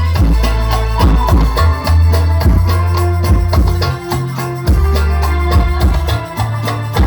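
Sholawat music played loudly through a sound system under test, with dense percussion and a heavy bass line.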